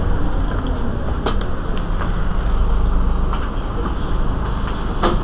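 Heuliez GX 327 city bus's rear-mounted engine idling at a standstill, a steady low rumble, with two short sharp clicks, one about a second in and one near the end.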